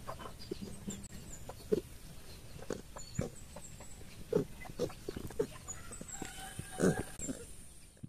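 Piglets grunting in short calls, one after another, the strongest cluster about seven seconds in, with faint high chirps scattered over them.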